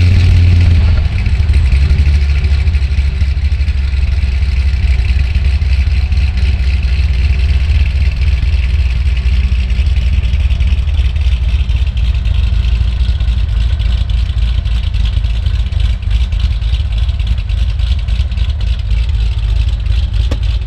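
2008 Corvette C6 Z06's 7.0-litre LS7 V8 with an aggressive, choppy camshaft, idling. It is loud in the first second after it catches, then settles into a steady, lumpy idle.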